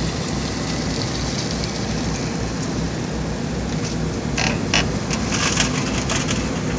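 Diesel engine of a Sumitomo SH210 hydraulic excavator running steadily while it loads rubble into a dump truck, with a short run of clattering knocks about two-thirds of the way in.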